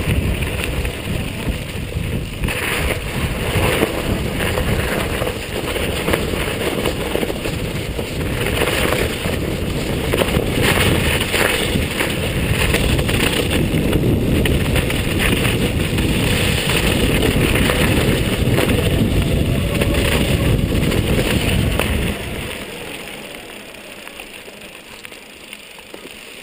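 Mountain bike rolling fast downhill over a gravel and snow dirt track: a steady rumble of tyres and rattling bike parts with wind on the microphone. It dies down near the end as the bike slows.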